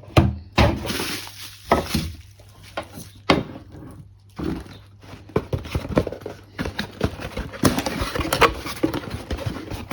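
Irregular knocks, clicks and rustling from battery parts and their packaging being handled and unpacked by hand, busier in the second half.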